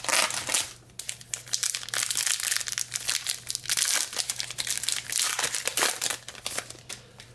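Wrapper of a baseball card pack crinkling and tearing as it is ripped open by hand: a dense run of crackles that fades out near the end.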